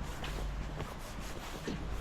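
Footsteps walking, a few soft scattered steps over a steady low rumble.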